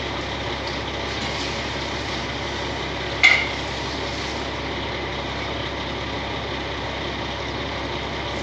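Heavy diesel engine idling steadily, with one sharp metallic clank that rings briefly about three seconds in.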